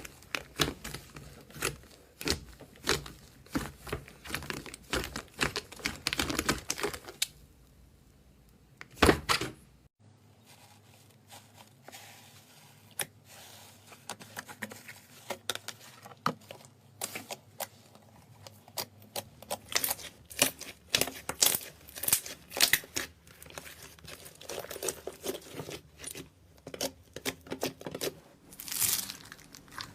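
Slime being squeezed and poked by hand, giving sticky clicks and crackles in irregular flurries, with a short lull about ten seconds in.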